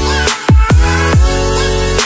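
Background electronic dance music: a held synth chord over deep, punchy kick drums that drop in pitch, several hits in two seconds.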